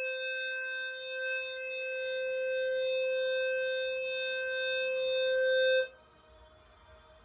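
Fire alarm sounding a loud, steady low tone that cuts off suddenly about six seconds in.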